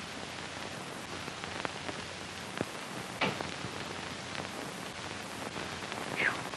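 Steady hiss with faint scattered clicks and crackles: the surface noise of an old 1940s film soundtrack. A short, faint sound comes about three seconds in.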